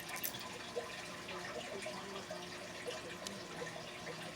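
Faint steady background hiss with a low hum, and scattered light clicks and taps from a heavy rhinestone necklace being handled and turned.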